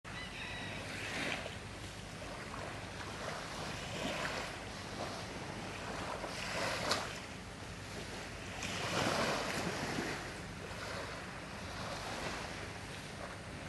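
Small waves washing onto a sandy beach: a soft, steady rush of surf that swells and falls back every two to three seconds.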